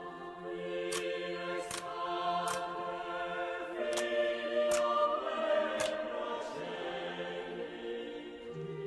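Background music of held choir-like voices, with sharp clicks roughly once a second.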